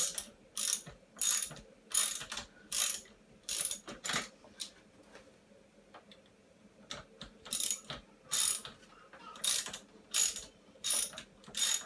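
Socket ratchet loosening a hydraulic disc brake caliper bolt: the pawl clicks on each back-swing, a short burst of clicks about every two-thirds of a second. The strokes pause for about two seconds midway, then resume.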